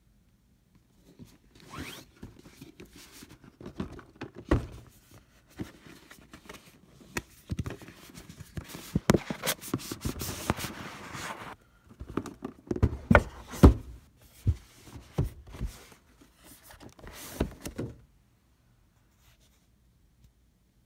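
Handling noise as a cardboard product box is turned over and moved: rustling and scraping with a series of sharp knocks, the loudest knocks a little past the middle, stopping about three seconds before the end.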